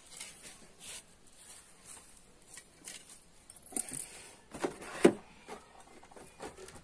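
Antennas and cable being handled and packed into a cardboard box: light rustles and taps. One sharper knock comes about five seconds in, as the blue dome antenna is set down in the box.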